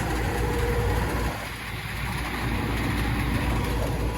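Rheem Classic 5-ton central air conditioner condensing unit running: a steady low compressor hum with the condenser fan. It drops in level about a second and a half in and carries on more softly.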